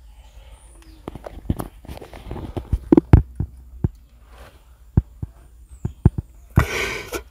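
A run of irregular knocks and thumps, about a dozen of varying strength, starting about a second in, followed near the end by a short burst of rushing noise.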